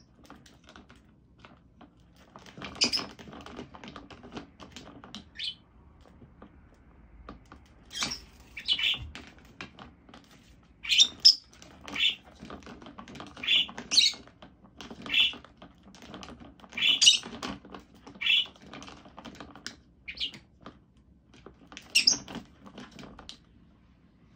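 Rosy-faced lovebird giving short, shrill chirps every second or two, among light clicks and knocks from the plastic swing lid of a bin that it is climbing on.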